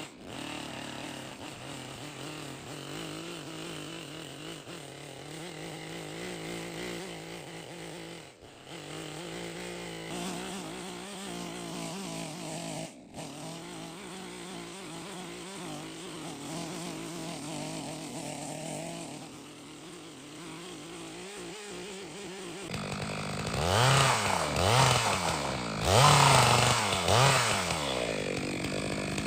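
Chainsaw engine running steadily at a low, even speed, then revved up and down several times near the end, each rev louder.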